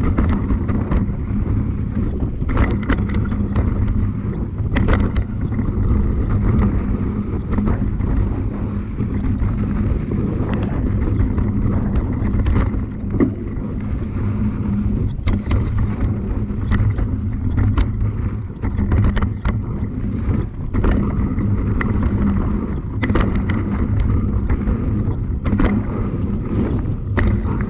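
Steady low rumble with many sharp, irregular rattles and knocks from a bike riding over a rough, loose-rock trail.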